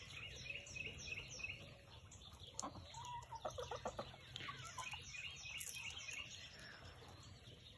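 Hens clucking, fairly faint, with a cluster of short clucks about three to four seconds in and a run of repeated high chirps in the first couple of seconds.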